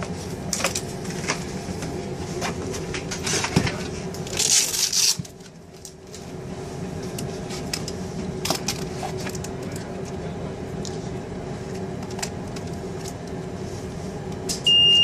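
A steady hum of an airliner cabin, with scattered handling clicks and a louder rustle about four and a half seconds in. At the very end comes a loud, steady, high electronic beep: the automated external defibrillator switching on.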